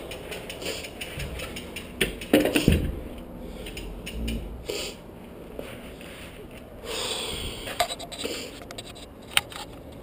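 Mountain bike's rear freehub ticking quickly as the bike is wheeled and parked, with a few heavy knocks about two to three seconds in and scattered clicks and rustling later on.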